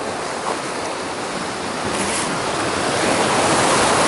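Sea surf breaking and washing among coastal boulders, a steady rushing that swells louder in the second half.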